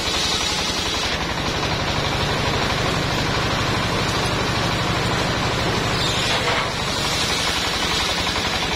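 The diesel engine driving a portable circular sawmill runs steadily with a fast pulsing beat. Over it the saw blade whines high as it cuts through a log; the whine fades about a second in and comes back about six seconds in.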